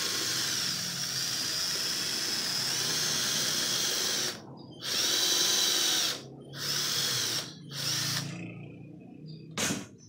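Cordless drill running into a white laminated cabinet panel to fasten a joint: one long steady run of about four seconds, then three shorter bursts. A single sharp click near the end.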